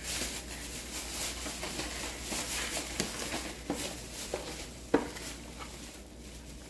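Thin plastic shopping bag rustling and crinkling as items are rummaged through and pulled out, busiest in the first half, with a sharp plastic click about five seconds in as a blister-packed product is handled.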